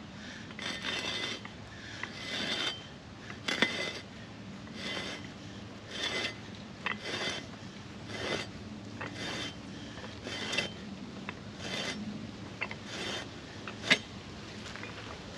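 Metal ground-screw mailbox anchor being twisted into gravelly soil by hand, giving a rasping scrape with each turn, repeated irregularly about once or twice a second. There are two sharper clicks, one early on and a louder one near the end.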